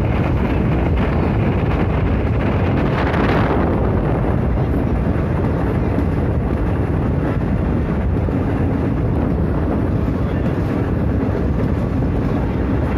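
Steady rush of wind and running noise from a moving passenger train, with wind buffeting the microphone. A stronger gust of hiss eases off about three and a half seconds in.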